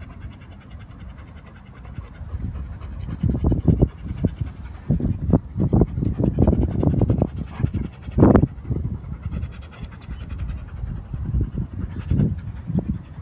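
A dog panting in quick, uneven breaths, louder from about three seconds in.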